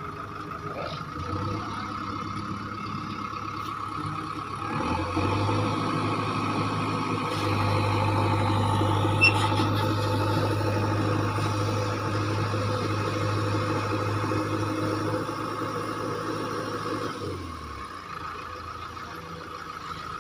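JCB backhoe loader's diesel engine running, pulling harder and louder from about five seconds in until near the end as its bucket works against the stuck, fully loaded tractor trolley. A single sharp knock about halfway through.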